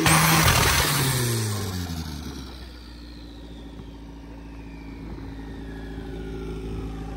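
Turbocharged Honda four-cylinder coming off a rev: a loud rush of turbo flutter as the throttle closes, then the revs fall back to a steady idle. A high turbo whistle glides slowly down as it spins down. The turbo exhausts through a short open pipe.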